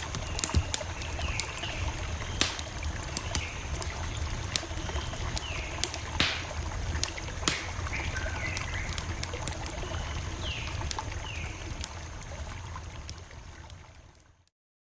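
Campfire crackling: sharp pops and snaps over a low rumble of burning wood, with a few short chirps in the background. It fades out near the end.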